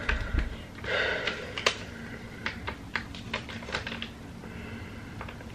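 Light, irregular clicks and taps of a plastic hair straightening brush being handled and turned over, about one or two a second.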